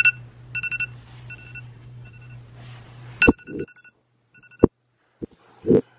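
iPhone alarm going off: repeated short two-tone beeps in quick groups. The beeping stops about two-thirds of the way through, and a few sharp knocks follow.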